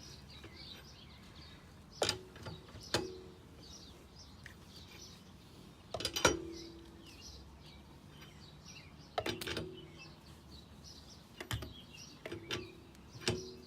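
Breaker bar and socket clanking on the wheel's lug nuts as they are cracked loose one by one: sharp metallic knocks a few seconds apart, each with a brief ring. Birds chirp faintly in the background.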